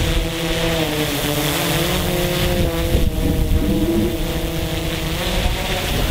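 DJI Inspire quadcopter hovering, its propellers' whine sliding down and up in pitch as the motors correct against gusts, over wind buffeting the microphone.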